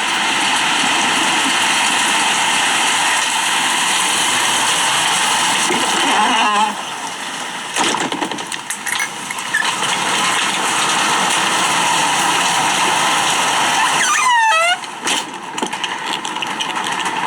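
Heavy rain pouring down in a steady, loud downpour, easing briefly twice.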